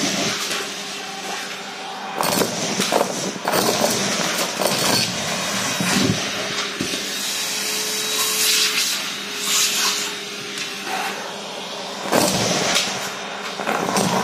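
Vacuum cleaner running with a metal tube, sucking up paper confetti and small plastic pieces: a steady suction rush broken by repeated bursts of rattling and crunching as debris is pulled up the tube.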